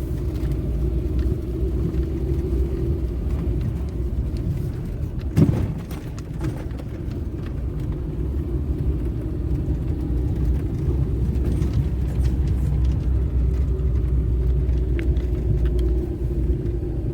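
Car driving slowly over a rough, overgrown forest dirt track, with a steady low rumble of engine and tyres. A single loud thump about five seconds in as the car jolts over a bump, with smaller knocks and rattles around it.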